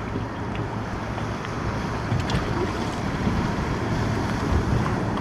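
Wind buffeting the microphone over the steady wash of surf, with a constant low rumble.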